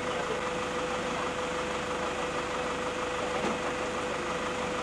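An engine running steadily, with a constant mid-pitched hum over an even hiss.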